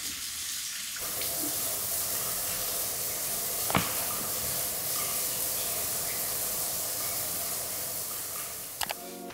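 Water running steadily from a bathroom sink tap, with a sharp click about four seconds in and a couple more just before the end.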